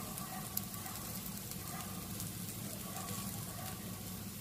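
Chopped onions, chillies and curry leaves frying in oil in a pan: a steady sizzle with occasional faint crackles.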